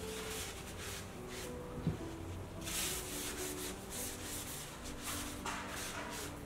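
Paper towel rubbing along the bumpy skin of a cucumber, a run of irregular brushing strokes as the cucumber is wiped clean.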